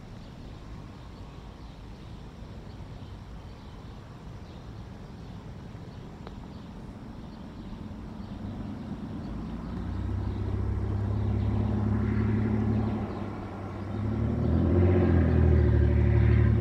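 A motor vehicle's engine approaching and passing close by. A low rumble builds from about eight seconds in, and its engine note dips and rises again a few seconds later, loudest near the end.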